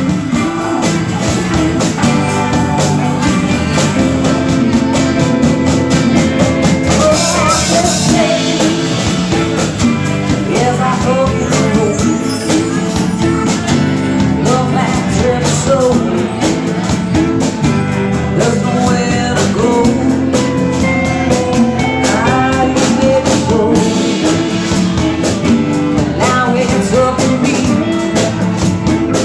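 A rock song with a singer over guitars and a steady beat, loud throughout.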